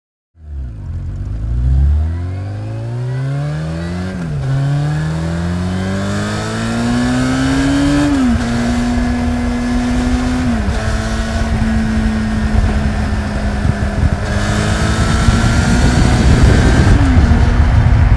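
Yamaha Thundercat's 600cc inline-four motorcycle engine accelerating through the gears: the exhaust note climbs in pitch, drops sharply at each upshift (about four, the first near four seconds in), then runs at a fairly steady pitch, growing louder toward the end.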